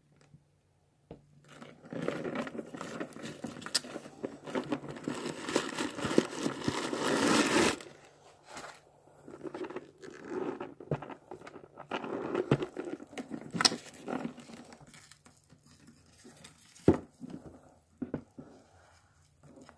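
Packaging crinkling and rustling as a handbag in its protective wrapping is handled and moved about in its box. It is loudest and most continuous in the first several seconds, then turns to intermittent rustles with a few sharp clicks or knocks.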